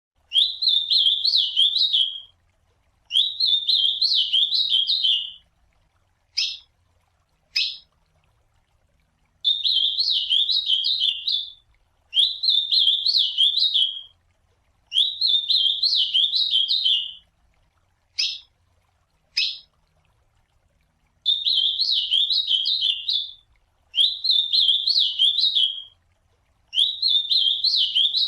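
Ultramarine grosbeak (azulão) singing: a warbled song phrase of about two seconds, repeated eight times at short intervals. A few single sharp call notes sound in two of the longer gaps.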